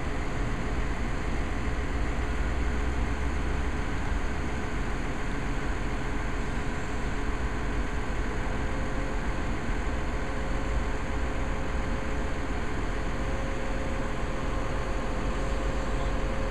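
Backhoe's diesel engine running steadily at idle, a continuous even rumble.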